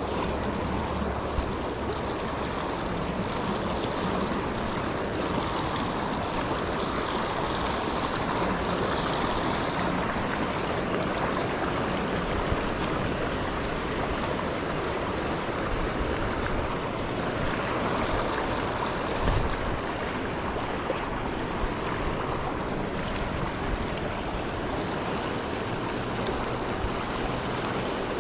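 River water flowing steadily, an even rushing noise, with one brief thump about two-thirds of the way through.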